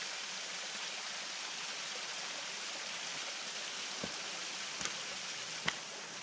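Steady rushing of running water, with a few faint clicks about two-thirds of the way through.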